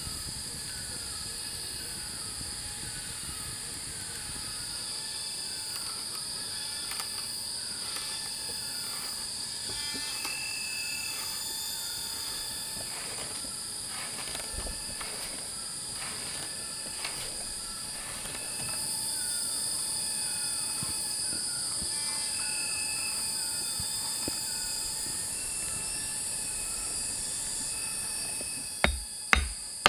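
Forest ambience: a steady high-pitched insect drone of crickets or cicadas, with a bird calling over it again and again in short falling notes. Near the end sharp knocks begin, about two a second, from a tool striking wood.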